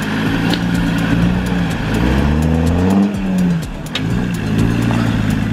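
Land Rover Discovery's engine pulling the truck up a steep rock step. The revs climb about two seconds in, peak around three seconds, then drop back.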